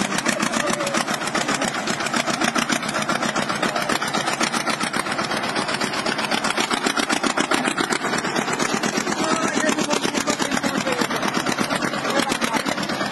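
Small tractor's diesel engine running with a steady, rapid, even beat.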